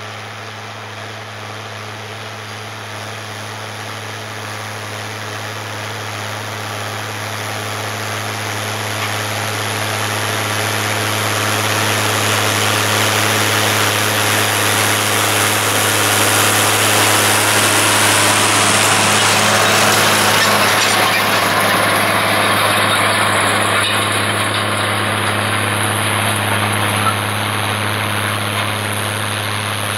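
International Harvester 956 XL tractor's six-cylinder diesel engine running steadily under load while pulling a stubble cultivator, growing louder as it draws near until about twenty seconds in, then easing off slightly near the end.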